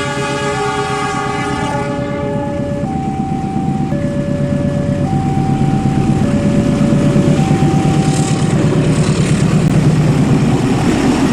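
A two-tone electronic warning signal alternating between a low and a high note about once a second, like a level-crossing alarm. Under it, a model train runs on its track with a steady rumble and clatter that grows louder as it comes closer.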